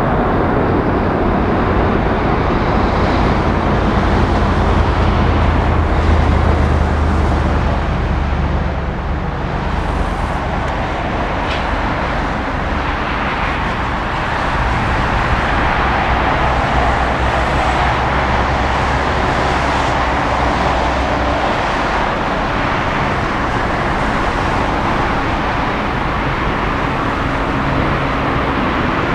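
Boeing 787-9 airliner's jet engines running loud and steady as it rolls down the runway after touchdown, easing off slightly partway through.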